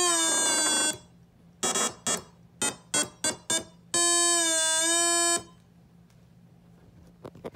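Homemade electric trombone: a small speaker playing an electronic tone whose pitch is set by an analog input. A held note sags slightly in pitch and cuts off about a second in. About six short beeps follow, then a steady held note of about a second and a half that stops suddenly, with a few faint clicks near the end.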